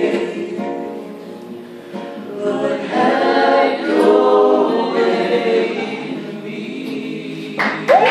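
Group of young women singing a song together in unison, with acoustic guitar accompaniment. Near the end a loud shout breaks in as the song finishes.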